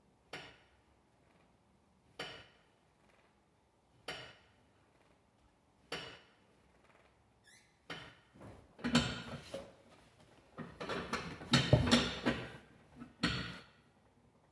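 Sounds of abdominal repetitions on a metal Roman chair: a short, sharp sound with each rep, four times about two seconds apart. Then a louder, busier run of knocks and rustling as the movement changes, ending in one last sharp sound.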